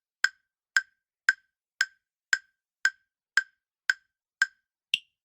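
Quiz countdown-timer sound effect: short, sharp ticks about two a second, ten in all, the last one higher in pitch.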